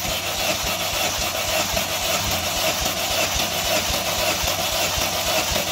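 Chevrolet Sonic 1.8-litre four-cylinder engine cranked over on its starter motor for a compression test, a steady starter whine with rapid pulsing from the compression strokes. The gauge is on the third cylinder, which reads lower than the others.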